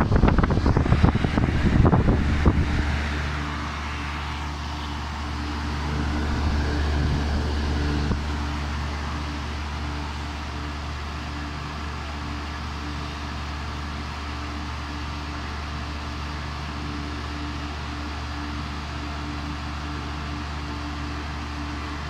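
Old Lennox central air conditioner's outdoor condensing unit running in cooling mode, a steady low hum with whooshing air from its top fan. For the first three seconds the exhaust air from the fan buffets the microphone held over the grille, making a louder rushing noise.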